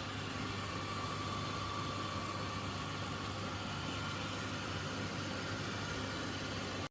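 Roborock S8 MaxV Ultra robot vacuum running: a steady motor whir with a low hum and a faint high whine, cutting off abruptly at the end.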